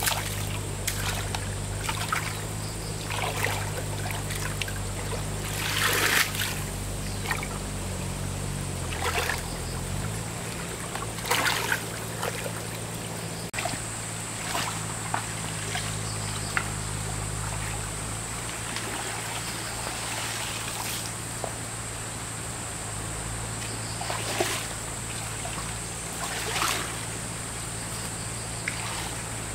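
Motor-driven water pump humming steadily while water trickles and pours, with the pitch of the hum shifting about nine seconds in. A few louder splashes sound over it.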